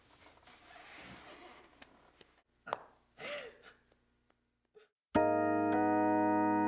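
A woman crying softly, with breaths and a couple of short sobs. About five seconds in, keyboard music with sustained chords starts suddenly and becomes the loudest sound.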